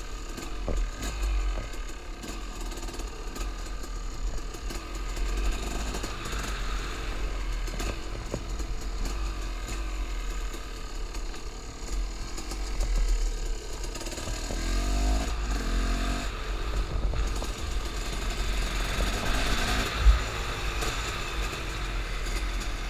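KTM two-stroke supermoto engine running as the bike is ridden, its pitch rising and falling with the throttle. A single sharp knock near the end is the loudest moment.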